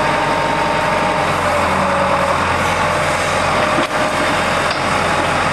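Diesel engine of a small tracked excavator running steadily.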